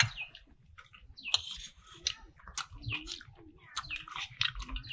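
Small birds chirping, many short rapid calls one after another.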